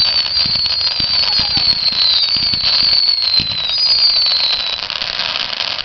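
Consumer ground firework shooting sparks with a continuous high, wavering whistle and dense crackling, with low thumps underneath. The whistling stops a little before the end while the crackle goes on.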